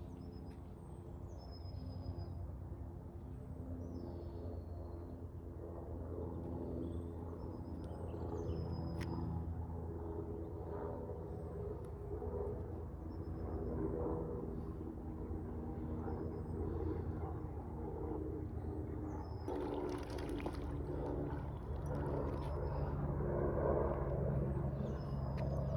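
Steady low engine hum with small birds chirping repeatedly over it, and a brief hiss about twenty seconds in.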